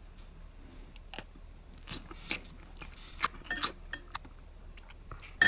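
Spaghetti being eaten: a metal fork scraping and clinking in a bowl of pasta, with mouth sounds of eating, in a run of short scrapes and clicks, then one sharp, ringing clink near the end.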